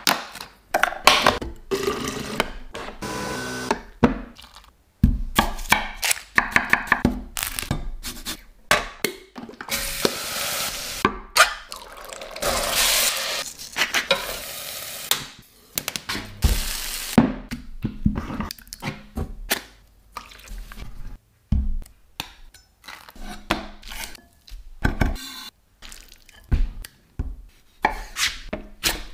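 Cooking sounds cut together in quick succession: a cardboard box torn open, stirring and grinding over a steel pot, and a knife slicing a tomato on a wooden board near the end. A stretch of steady hiss sits in the middle.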